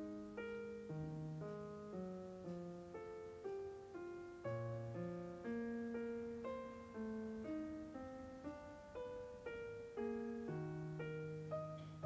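Background piano music: a gentle piano piece with a steady run of notes over a lower line.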